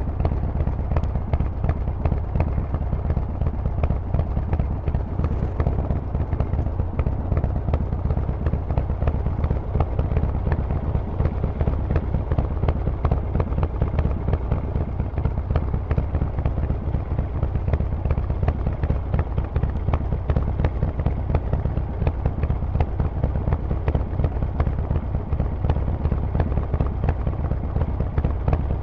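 Harley-Davidson Forty-Eight's air-cooled V-twin running through a Vance & Hines aftermarket exhaust: a steady, loud rumble of rapid exhaust pulses that holds even, with no revving up or down.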